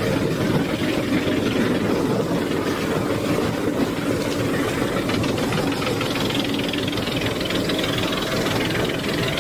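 Large wood chipper running: a steady engine and machinery noise with a continuous rattling clatter, holding an even level.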